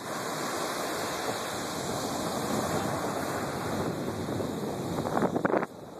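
Small ocean waves breaking and washing up a sandy beach, a steady rushing surf with wind on the microphone. A few brief louder knocks come just before the end, after which the level drops suddenly.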